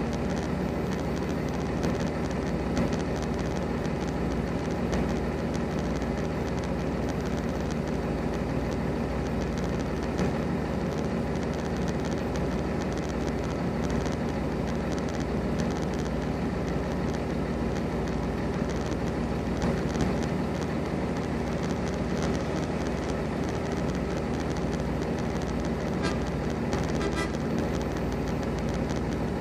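Diesel truck engine idling steadily, with a few faint ticks near the end.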